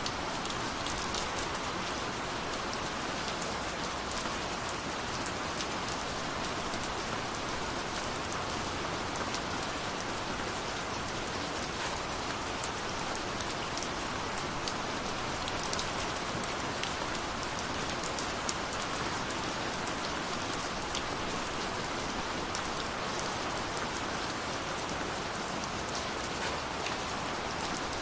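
Steady rain falling, a continuous hiss with many small drop ticks scattered through it.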